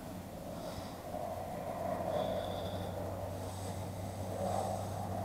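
Agricultural spray plane's engine droning in the distance, a steady low hum with an airy rush that swells and grows gradually louder as the plane flies over the field.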